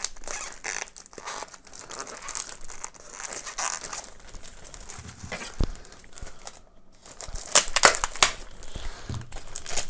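Plastic wrapping crinkling as it is handled and pulled off a soundbar, in irregular crackles that grow loudest a little after halfway through.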